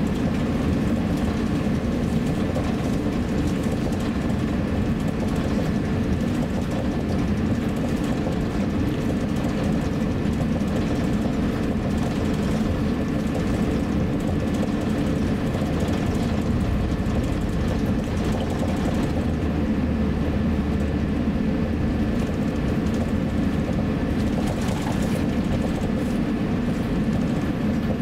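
Steady cabin noise inside an Airbus A350-900 taxiing: a low, even rumble of the jet at taxi power and its airflow, with a faint high steady whine.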